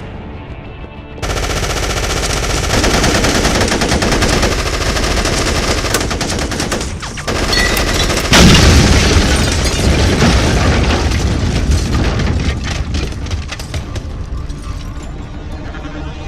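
Rapid automatic gunfire over a busy music track, with a sudden loud boom about eight seconds in. The shooting starts about a second in.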